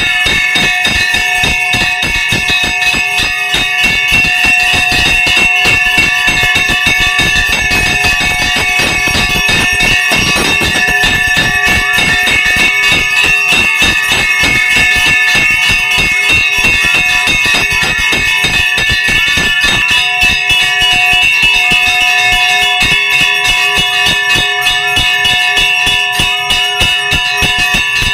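Brass temple bell rung rapidly and continuously during the aarti, its strikes running together into one sustained, ringing clang.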